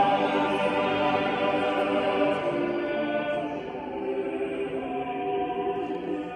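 Choral music: many voices singing long, held chords, a little quieter in the second half.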